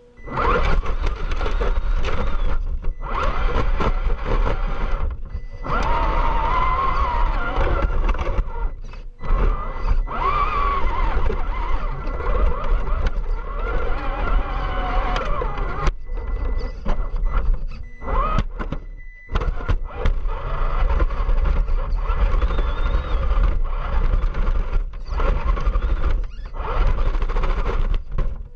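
Onboard sound of an Axial SCX10 II RC crawler driving: its electric motor and drivetrain whining, rising and falling in pitch with the throttle, over a heavy rumble of the chassis shaking and scrabbling over grass and rocks. The sound cuts out briefly several times.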